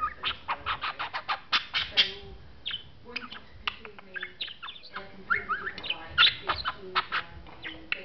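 Budgerigar chattering: a fast, continuous run of clicks, sharp chirps and short rising whistles.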